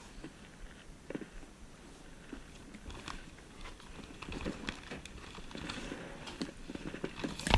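Hands rummaging through clothes and handbags: scattered rustling and small knocks of fabric and bag material being moved, with one sharp, loud knock near the end.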